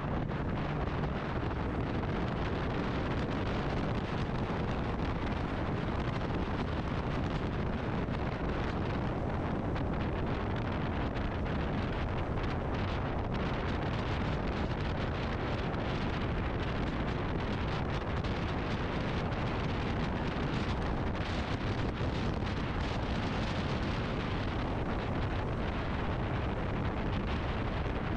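Steady wind noise buffeting the microphone on a motorcycle riding at speed, with the rush of the bike and road underneath.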